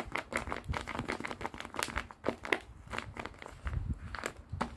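Tape-covered paper squishies crinkling and crackling as fingers squeeze and press them, in a stream of irregular crackles.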